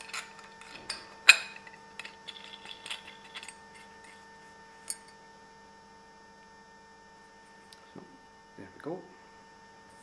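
Small metal clinks and taps as a siphon nozzle and lock nut are handled against a stainless steel tube, mostly in the first few seconds with the loudest clink about a second in and one more near the middle. A steady electrical hum runs underneath.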